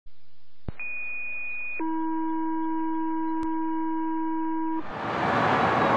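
Clean, steady synthesized tones: a single high tone, then a lower chord of several tones, with two short clicks. About five seconds in they cut off and loud, steady road noise of an approaching fire engine begins.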